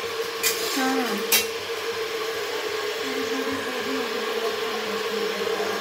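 Metal spatula clinking against an iron kadai of frying potatoes, two sharp clicks in the first second and a half, over a steady mechanical hum.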